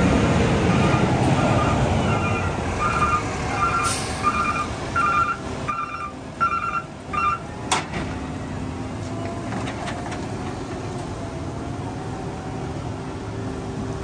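Concrete mixer truck backing up: its reversing alarm beeps at about one and a half beeps a second over the diesel engine running. The beeping stops about seven seconds in, a short sharp air hiss follows, and the engine runs on.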